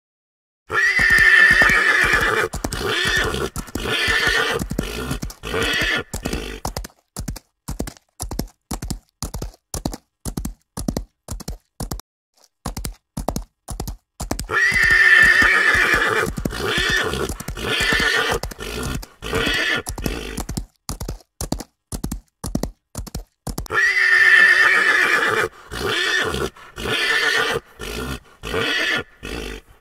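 A horse whinnying, then a run of clip-clopping hoofbeats. The whinny followed by hoofbeats comes three times: at the start, about halfway through and about three-quarters of the way in.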